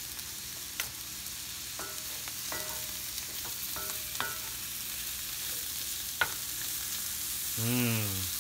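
Morel mushrooms and green onion sautéing in butter in a cast-iron skillet with a steady sizzle, stirred with a wooden spatula that knocks and scrapes against the pan now and then. The moisture has cooked off, so the mushrooms are frying rather than stewing.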